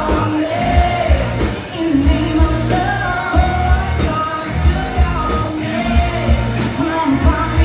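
A rock-style song: a lead singer over a steady drum beat and bass.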